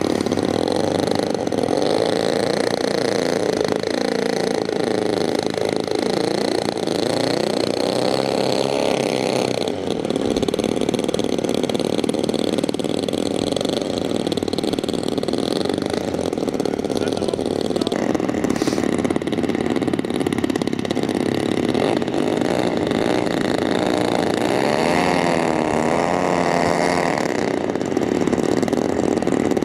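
The two propeller engines of a small twin-engine unmanned aircraft running together, their pitch wandering up and down as the throttle changes during taxiing.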